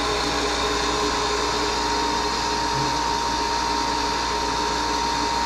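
Wet ring dental vacuum pump running steadily with a constant whine over its running noise. Its inlet is blocked off so no air flows through it, and it is pulling only about 14 inHg, a sign of a weak pump that is overheating.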